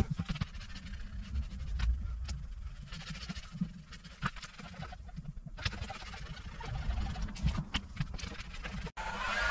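Hand scuffing of a primed car door panel with an abrasive pad: irregular scratchy rubbing strokes with clicks and knocks over a low rumble. The sound breaks off abruptly twice.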